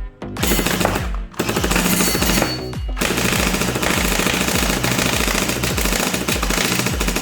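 Electric Kriss Vector-style gel blaster firing on full auto: its motor and nylon-geared gearbox cycle in rapid bursts, a short one, a longer one, then a long run. Background music with a steady beat plays underneath.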